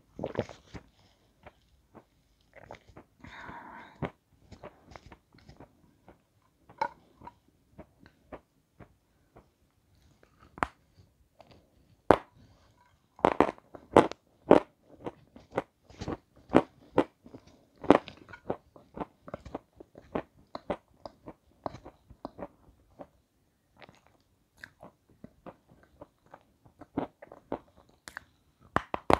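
Close-miked biting and chewing of crisp snow-white chalk-like chunks: a run of sharp crunches and crackling chews, densest through the middle stretch.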